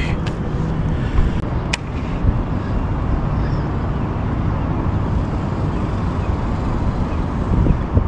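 Wind buffeting the microphone: a steady low rumble with no clear tone or rhythm.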